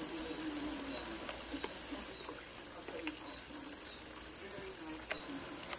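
Summer insect chorus: a steady, unbroken high-pitched buzzing drone.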